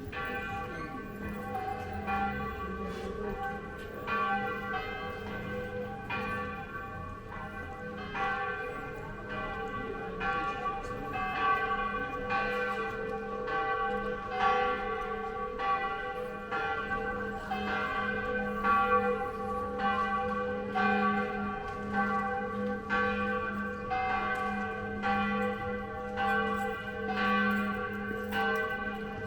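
Church bells ringing: a steady run of strokes, each leaving the bell's tones humming on.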